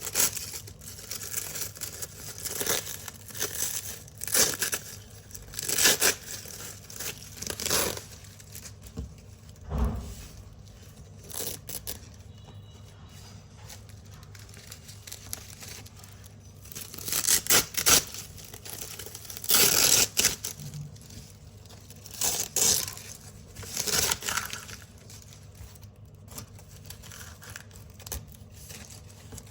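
Velcro (hook-and-loop) strips ripped off a large black Velcro roll: a series of crunchy, crisp rips, one after another, with a quieter spell about halfway through and again near the end.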